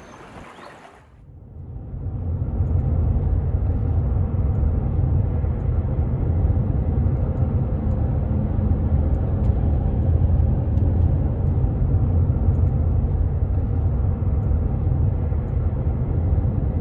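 Steady low road rumble inside a moving car, from the engine and tyres at cruising speed. It comes up about a second in and holds even.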